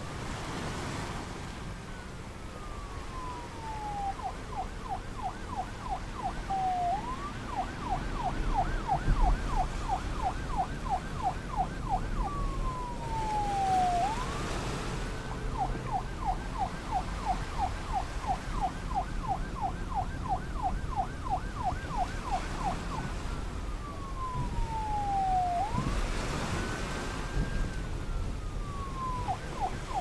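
Emergency vehicle siren cycling between slow falling wails and long runs of rapid yelps, about four or five a second, over a low background rumble.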